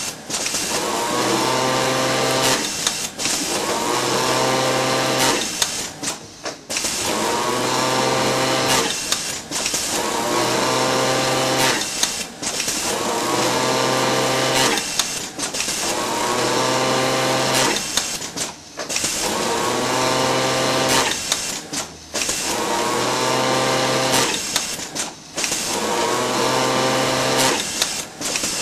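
Automatic rib-knit bottom-band setting workstation's industrial sewing machine running in repeated sew cycles, about nine in all: each starts with a rising whine as the motor spins up, runs at steady speed for roughly three seconds, then stops briefly before the next piece.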